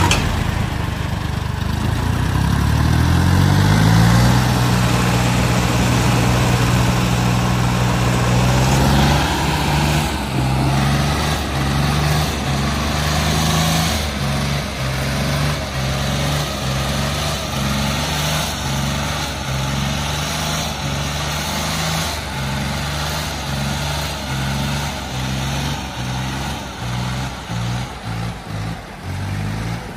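John Deere and Sonalika tractor diesel engines at full throttle, labouring against each other in a tug-of-war. The engine note rises over the first few seconds and holds. From about a third of the way in it surges and dips about once a second as the load shifts.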